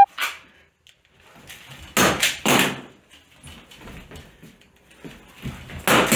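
Heavy knocks and thuds of boots and gear on a plywood floor during a dry-fire pistol movement drill: three close together about two seconds in and another cluster near the end, with softer scuffing between.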